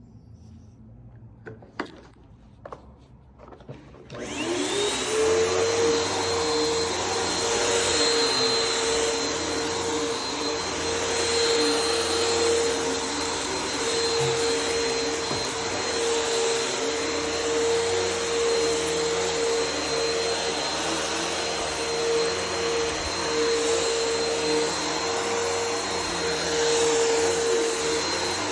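A few light clicks, then a Bissell vacuum cleaner switches on about four seconds in. Its motor spins up with a rising whine and settles into a steady run, a constant whine over rushing air.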